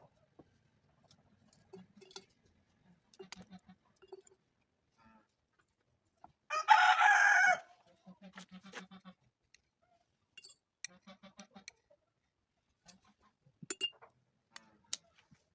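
A rooster crows once, loudly, about six and a half seconds in, the call lasting about a second. Around it, chickens cluck softly in short runs, with a few faint clicks.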